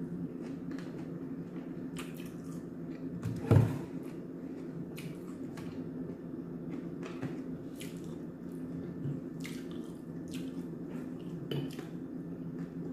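Steady low room hum with scattered faint clicks and handling noises, and one short thud on the wooden table about three and a half seconds in.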